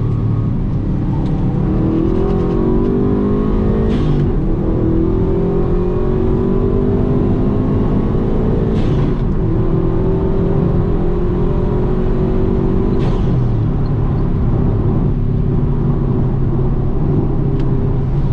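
Subaru WRX's turbocharged flat-four engine accelerating under load, its pitch climbing and dropping back at gear changes about 4 and 9 seconds in, then holding fairly steady.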